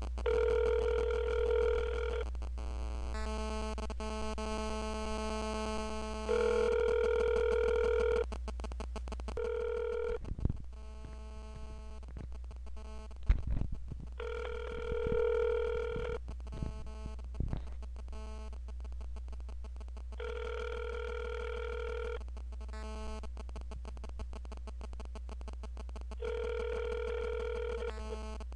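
Telephone ringback tone heard over the phone line: a steady two-second tone that comes back about every six seconds, the line ringing unanswered. In the gaps there are other line tones and a few clicks.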